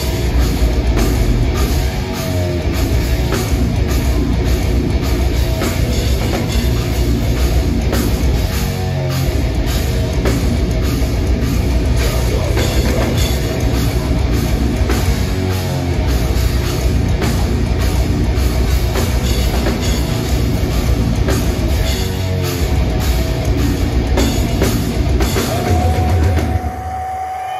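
Metal band playing live, with distorted guitars, bass and drum kit under a steady pounding beat. Near the end the band stops together, leaving a single held tone ringing.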